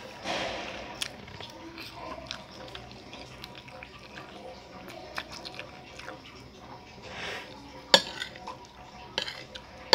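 Metal spoon clinking and scraping on a plate while eating, with chewing; a sharp clink about eight seconds in is the loudest.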